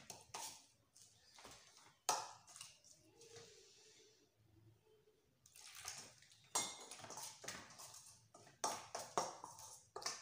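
Metal spoon and fingers stirring and scraping a wet spice paste in a stainless steel bowl: irregular clinks against the steel and squelches of the paste, with a lull for a second or two near the middle.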